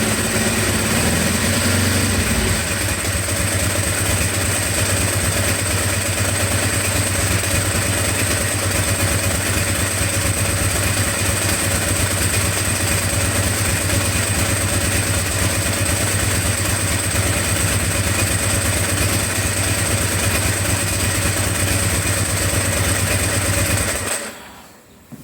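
Ducati 749 L-twin engine running at idle, a little faster for the first two seconds and then steady. The sound cuts off suddenly near the end.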